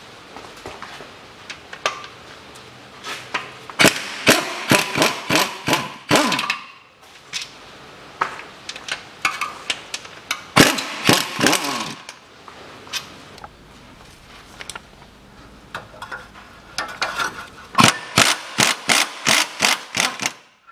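A ratchet wrench undoing engine-to-gearbox bolts: three spells of quick metallic clicking, about four seconds in, about ten seconds in and near the end, with scattered lighter clicks between.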